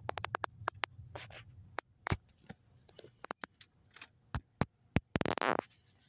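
Handling noise from the phone that is recording: irregular sharp clicks and taps of fingers on the phone near its microphone, then a longer scraping rub about five seconds in. A low hum underneath stops about two seconds in.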